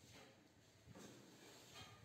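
Near silence: faint room tone with a couple of soft, brief rustles.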